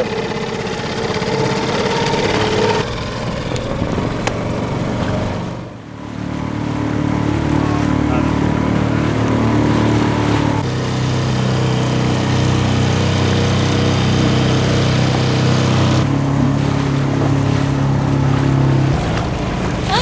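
Small outboard motor on a dinghy running steadily, its level dipping briefly about six seconds in and its pitch shifting a few times.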